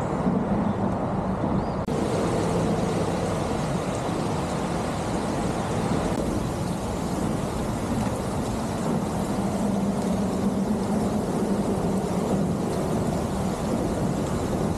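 Steady wind rumbling and buffeting on the microphone, with the hiss of rain; the hiss turns abruptly brighter about two seconds in.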